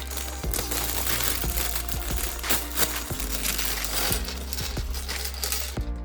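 Many small plastic Lego pieces clattering and rattling against each other as they are sorted, with dense quick clicks throughout. Background music with a steady low bass plays underneath.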